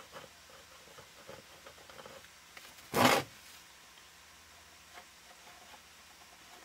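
Plastic five-gallon bucket being handled and tipped onto its side on a workbench: a few light clicks, then one short, loud scraping rub about three seconds in.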